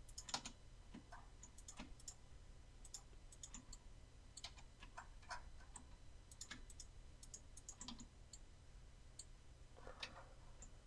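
Faint, irregular clicks of a computer keyboard and mouse, over a low steady hum.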